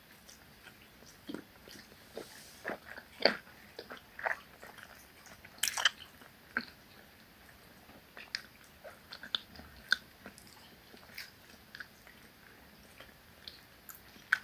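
Close-up chewing and mouth sounds of a person eating ugali with managu greens: irregular soft wet clicks and smacks, a few louder ones around three and six seconds in.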